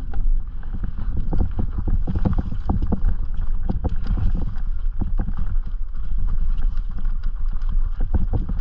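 Specialized Turbo Levo electric mountain bike rattling over rocky trail: irregular knocks and clatters from the tyres, chain and frame, over a steady low rumble.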